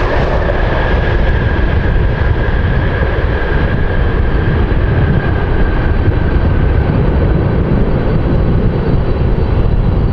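Jet airliner engines running, a loud steady rumble with a faint whine that slowly drops in pitch.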